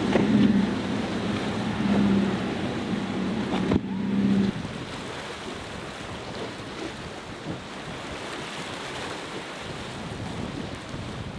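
The Hydra-Sport's four Mercury 300 outboard engines droning at speed over the rush of spray and waves. About four and a half seconds in, the engine tone drops away, leaving a steady wash of waves and wind noise on the microphone.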